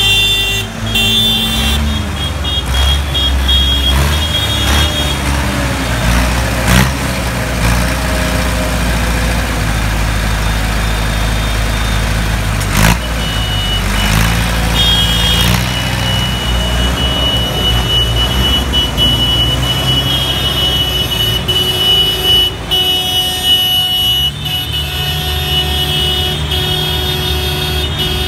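Diesel engines of several Massey Ferguson tractors running as they drive slowly past in a line, the engine note changing as each one goes by. A steady high-pitched tone sounds over them.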